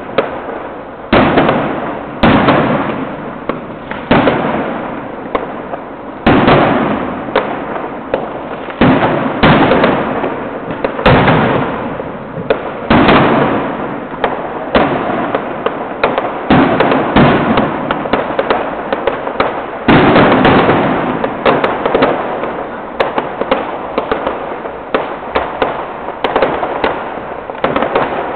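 Fireworks going off in quick succession: sharp bangs every one to two seconds, each trailing off in a fading crackle.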